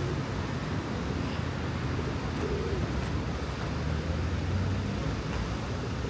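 Steady street traffic noise, with a vehicle engine humming a little louder about four seconds in.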